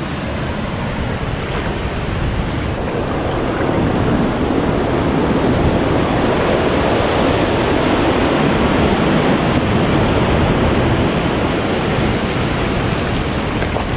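Waterfall rushing over rock ledges, a steady loud rush of water that grows louder about three to four seconds in as the camera nears the drop.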